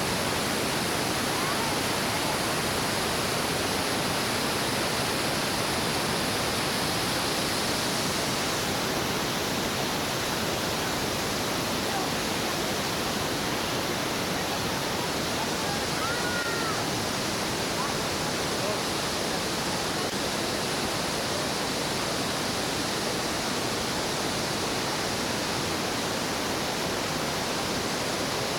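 Steady, unbroken rush of heavy water falling at the Iguazu Falls.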